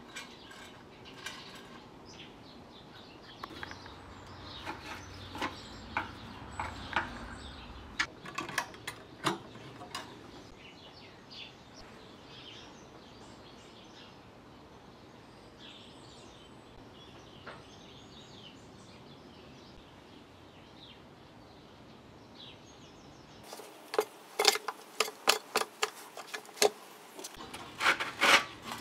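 Light, scattered metallic clicks and taps of hand-handled engine parts, then near the end a quick run of loud clicks and knocks as gloved hands work the rusty recoil starter pulley inside its housing.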